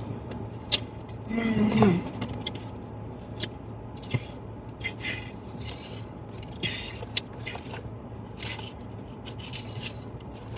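A woman eating a fried chicken wing gives a hummed "hmm" of approval about two seconds in, then light scrapes, rustles and clicks of handling her food in her lap, with a steady low hum underneath.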